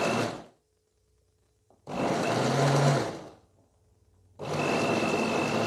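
Electric blender run in short pulses, its blade chopping overripe bananas into a purée: three bursts of about a second each with quiet gaps between, one stopping just after the start, then one about two seconds in and another about four and a half seconds in.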